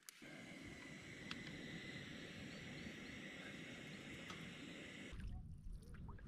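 Steady hiss of a lit camp stove burner under a wire bagel toaster, with a faint high steady tone and a few light clicks. About five seconds in, it gives way to a low rumble of wind on the microphone out on the lake.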